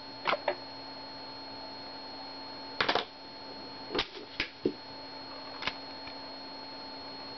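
Steady faint electronic whine and hum. It is broken by a handful of short clicks or knocks, the loudest a double one about three seconds in.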